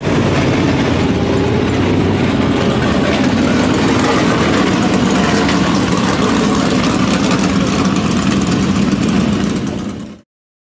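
Dirt late model race cars' V8 engines running, loud and steady, fading out and cutting off near the end.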